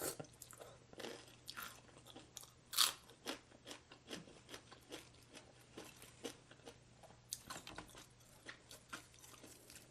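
Close-miked chewing and crunching of crisp food, a quick irregular string of crunches with one louder crunch about three seconds in.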